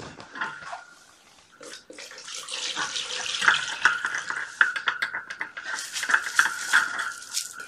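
Water running from a tap for about five seconds, starting about two seconds in, with light clattering through it.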